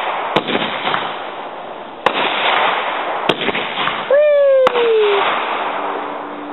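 Consumer fireworks going off: several sharp bangs over a dense crackling hiss. About four seconds in, a whistling firework gives a whistle that falls in pitch for about a second.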